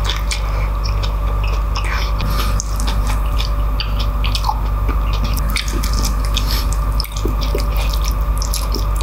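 Close-up eating sounds of kare-kare eaten by hand: wet chewing and lip smacks, with many short sticky clicks and squishes, over a steady low hum.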